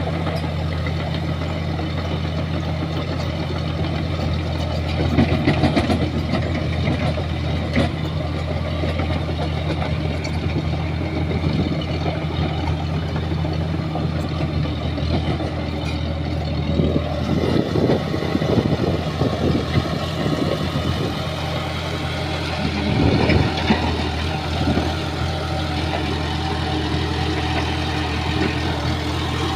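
Bulldozer's diesel engine running steadily, with bursts of clattering about five seconds in, again between about 17 and 20 seconds, and around 23 seconds.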